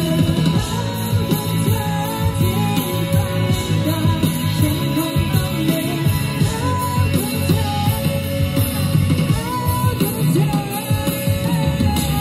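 A woman singing a pop-rock song live over guitar and drums.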